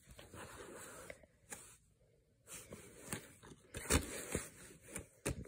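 Quiet handling of a plastic DVD case on a bedspread: soft rubbing and scraping, with a few light clicks. The loudest comes about four seconds in, as the case is snapped shut.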